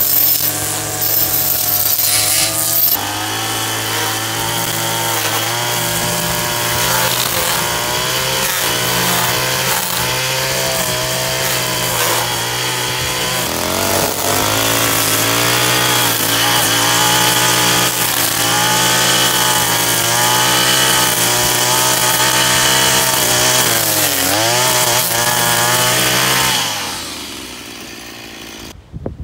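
Echo two-stroke string trimmer running and cutting overgrown grass, its engine pitch rising and falling as the throttle is worked. The sound fades out near the end.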